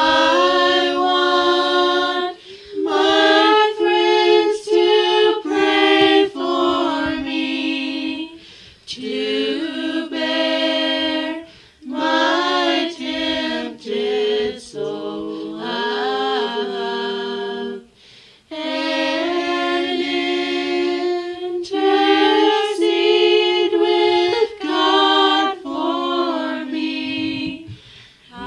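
An a cappella vocal group singing a gospel hymn in close harmony, with no instruments: held chords in phrases of a few seconds, separated by brief pauses.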